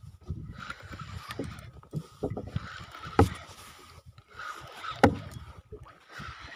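Rubbing and scraping handling noise from clothing pressed against the camera while a hooked fish is reeled in on a spinning reel, with two sharp knocks about three and five seconds in.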